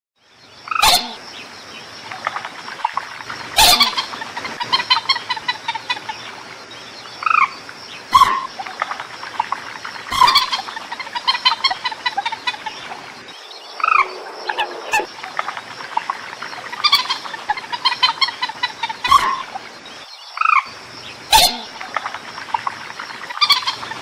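Recorded common moorhen calls played as a trapping lure: runs of rapid clucking and short croaks that come again every few seconds. A sharp click, the loudest thing in the track, comes every few seconds, and a faint steady high hiss runs underneath.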